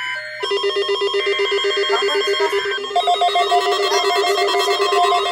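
Weather radio alert alarm: a buzzy, rapidly trilling electronic tone, with a second, higher tone joining about three seconds in, set off by the NOAA Weather Radio required weekly test signal. A warbling data burst of the digital alert header sounds under it for about a second and a half.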